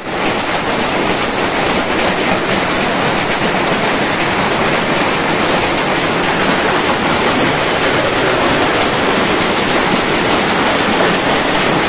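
A heavy hailstorm: hailstones pelting down on tin roofing and the wet ground in a dense, steady clatter.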